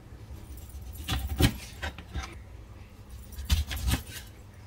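Kitchen knife cutting oranges in half, the blade knocking on a plastic cutting board a few times.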